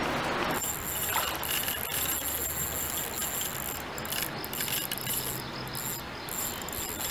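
Insect chorus: a steady high-pitched buzz that starts about half a second in and drops out briefly a few times in the second half, over a low background hiss.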